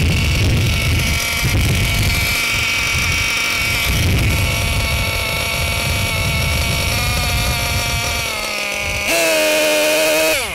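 The small gasoline engine of a Losi LST XXL-2 RC monster truck idling steadily while its bottom needle, which sets the idle, is turned in, with wind rumbling on the microphone. Near the end the sound shifts to a lower steady tone, then suddenly grows loud.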